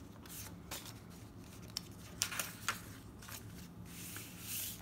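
Loose sheets of paper being handled and pressed into a handmade journal: a few soft, separate rustles and taps, then a longer brushing rustle near the end.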